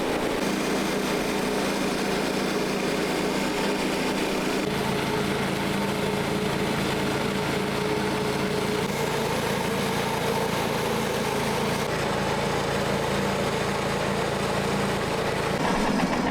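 Portable sawmill's gas engine running steadily under load while the saw cuts through a large, wet black cottonwood log; the engine's tone shifts slightly about four and a half seconds in.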